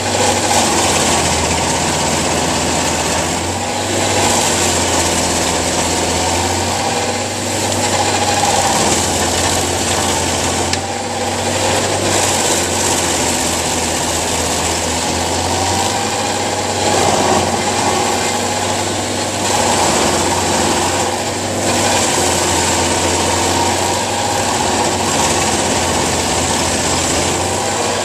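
Engine of a powered tree or stump removal machine running steadily, its pitch and load shifting slightly every few seconds.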